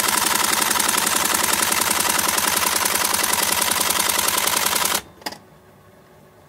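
Electric typewriter auto-spacing, close up: a fast, continuous rattle of spacing strokes as the carriage steps along. The rattle stops abruptly about five seconds in, followed by one single click and a faint hum.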